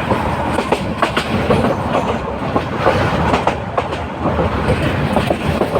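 Moving train, its wheels clattering over the rail joints with many irregular clicks over a steady, loud rumble.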